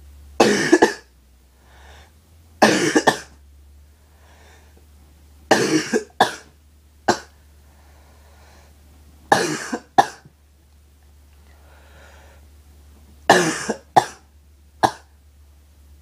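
A person's harsh, barking cough: six bouts every two to four seconds, several with one or two short extra coughs tacked on, with breaths drawn in between.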